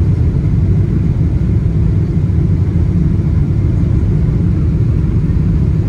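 Steady low rumble of a Boeing 777-200 airliner heard from inside the economy cabin: engine and airflow noise, unchanging throughout.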